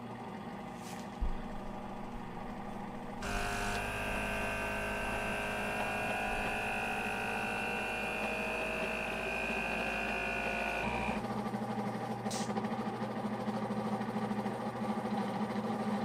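Kuvings SV500 vacuum blender running an automatic cycle under its noise-reduction cover. It starts with a softer steady hum, then about three seconds in it steps up to a louder run with a steady high whine. About eleven seconds in it changes to a different steady hum that runs on.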